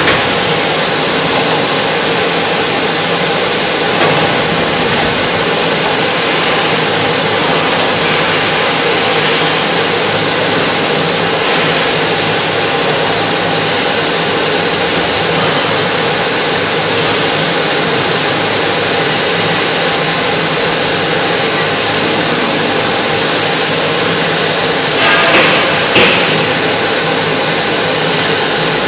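Yanmar ViO30 mini excavator's diesel engine running steadily, with a couple of brief knocks near the end.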